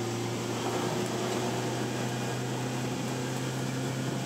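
Outboard motor running steadily under way, a constant engine hum with water and hull noise, heard from inside the boat's enclosed cabin.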